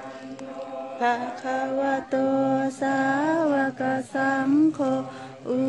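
A group chanting Buddhist verses in Pali in unison, with high, women's voices prominent. From about a second in they sing long held notes whose pitch bends up and down, with short breaks between phrases.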